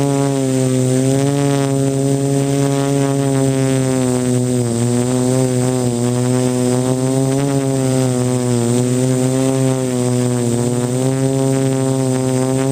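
Quadcopter's electric motors and propellers buzzing up close: a steady, loud hum whose pitch wavers slightly up and down.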